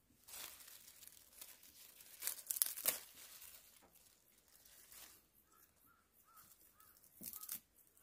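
Fresh herb leaves and stems rustling and crackling as they are handled, broken and stuffed by hand into a ceramic teapot. The loudest rustling comes about two and a half seconds in, with another short burst near the end.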